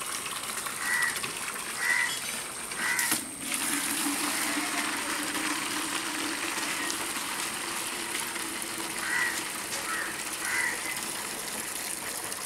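Tube-well water pouring steadily from a pipe and a hose, splashing into a large pot of water and onto the ground. A bird calls three times about a second apart near the start, and three times again near the end.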